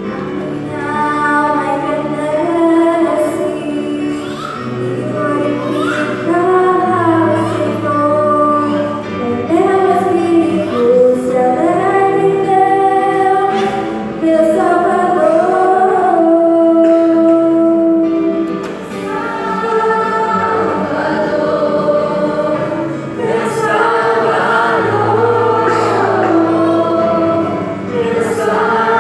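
A children's church choir singing a religious song in unison, with melody lines rising and falling over sustained instrumental bass notes.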